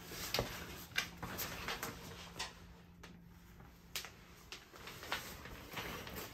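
Shower curtain and plastic liner being pushed aside by hand: rustling with several sharp clicks and knocks, the loudest about a second in.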